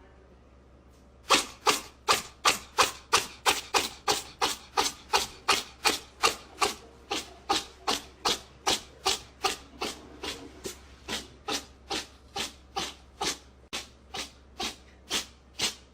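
Rhythmic rasping strokes, about two and a half a second, starting about a second in and going on steadily: something being scratched or rubbed back and forth.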